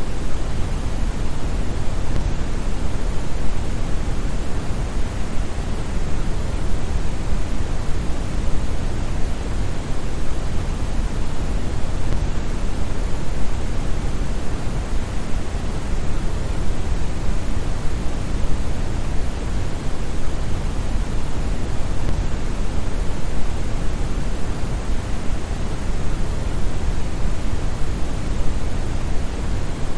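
Steady synthetic brown noise: an even, deep hiss with most of its weight in the bass, like a distant waterfall.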